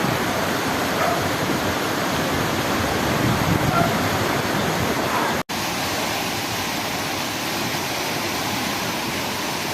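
Rushing floodwater, a steady loud roar of water noise. The sound cuts out for an instant about five and a half seconds in, then resumes.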